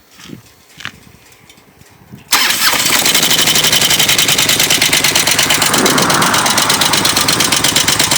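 Harley-Davidson Twin Cam 88 V-twin engine starting about two seconds in, after a few small clicks, and then idling with a rapid even pulse. The engine has a recurring knock that the owner cannot place and wonders whether it is a lifter or the compensator nut.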